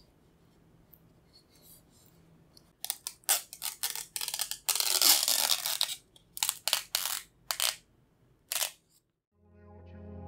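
Clear plastic protective film being peeled off the underside of a new mouse: a run of short rasping rips and one longer peel of about a second. Background music comes in near the end.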